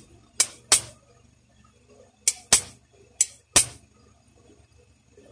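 Sharp metallic clicks, six in three quick pairs, from small parts of a Daisy Power Line 1200 BB pistol's mechanism being worked in the hand during reassembly.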